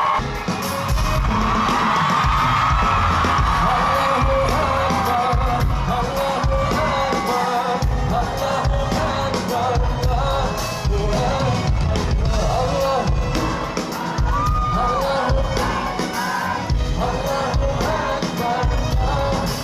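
Live band music with a regular drum beat, and a crowd cheering over it.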